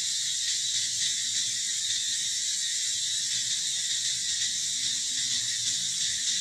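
Steady high-pitched drone of an insect chorus in the forest, holding an even level without a break.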